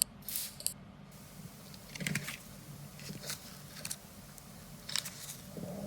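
A few short, separate clicks and small mechanical handling noises, spread out over several seconds, above a steady low hum.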